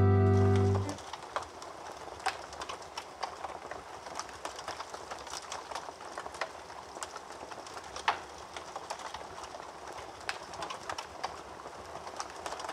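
A held music chord cuts off about a second in, leaving fire crackling: a steady hiss with irregular sharp pops and snaps.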